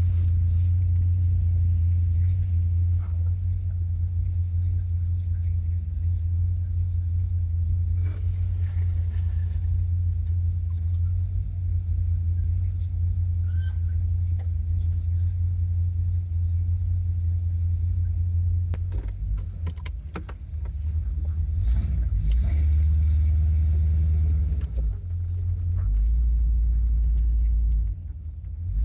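A car's engine and road noise are heard from inside the cabin while driving: a steady low drone. In the last several seconds the drone shifts pitch a few times as the car slows.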